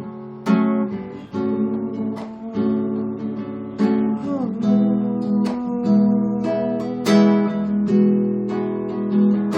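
Acoustic guitar strumming chords, each strum ringing on until the next, with no singing.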